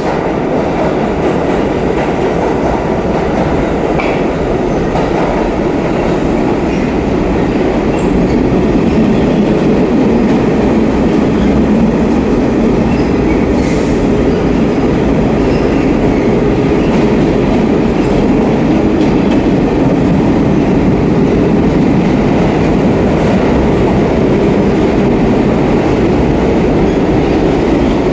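New York City subway train running through the station, a loud, steady noise of wheels on the rails that grows a little louder about eight seconds in.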